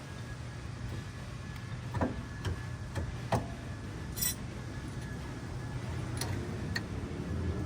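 A handful of light metal clinks and taps, spaced irregularly over several seconds, as brake caliper parts and bolts are handled and fitted over new pads.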